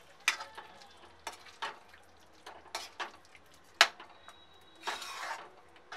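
Metal spatula stirring thick gravy in a metal kadai, giving irregular scrapes and knocks against the pan. The sharpest knock comes about 4 seconds in, and a longer scrape follows about a second later.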